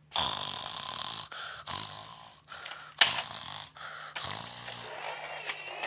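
A person making breathy, straining noises close to the microphone in short broken stretches, with a sharp click about three seconds in and a short low grunt a little after four seconds.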